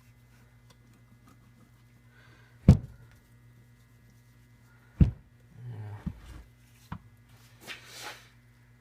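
Two sharp knocks about two seconds apart, then softer rattling and a light click: engine parts and tools being handled and set down on a workbench during the teardown of a small engine. A steady low hum runs underneath.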